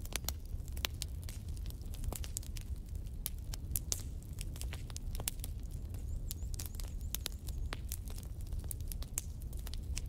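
Wood fire of sticks and logs crackling, with frequent irregular sharp pops and snaps over a steady low rumble.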